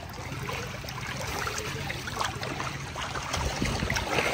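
Pool water splashing and trickling, with scattered small splashes over a steady low rumble.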